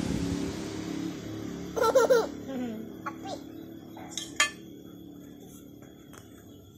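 A child laughs briefly about two seconds in, while the noise of a passing vehicle fades away. A few light clicks follow.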